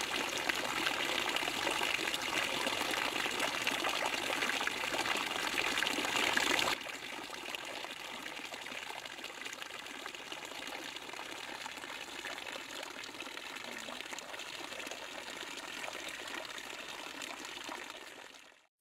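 Water streaming from bamboo spouts and splashing onto a capybara and into the shallow pool below, a steady trickling hiss. It drops suddenly to a quieter level about seven seconds in.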